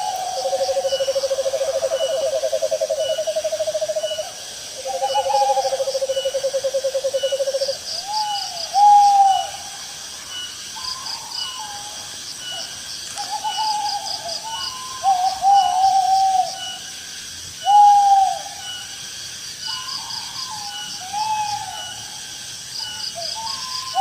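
Owls calling: long, even trills in the first eight seconds, two of them overlapping at the start, then short rising-and-falling hoots every second or two. Insects chirp high and steadily behind.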